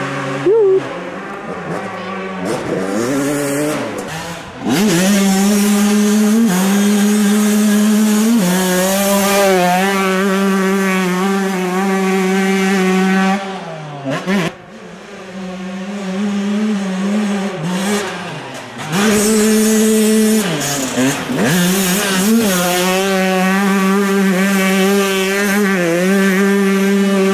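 Motocross bike engines revving hard past the camera, held at a high, steady pitch for several seconds at a time, with dips and rises as the riders shift and come off the throttle. The sound is quieter at the start and again around the middle, and loud from about two-thirds of the way in to the end.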